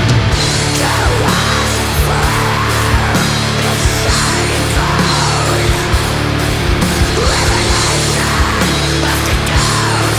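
Finnish black metal recording playing: a dense, loud and unbroken wall of distorted guitars over drums.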